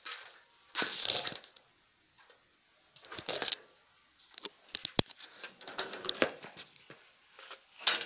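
Handling noise from a phone being moved about: cloth rustling and brushing against the microphone in irregular bursts, with one sharp click about five seconds in.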